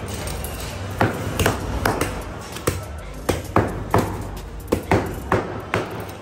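Butcher's meat cleaver chopping through meat and bone on a cutting block: a run of about eleven sharp chops, roughly two a second, starting about a second in.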